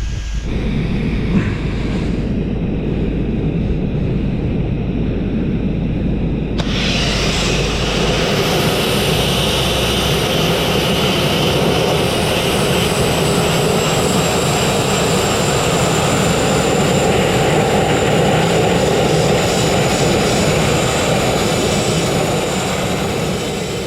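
Abrasive blast equipment running: a loud, steady roar of compressed air and grit that turns much hissier about seven seconds in, as a blast nozzle works full on the steel of a narrow boat hull.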